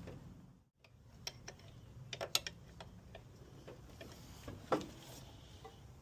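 Scattered faint metallic clicks and taps of hand tools and metal parts being handled, with a small cluster about two seconds in and a sharper knock near the end.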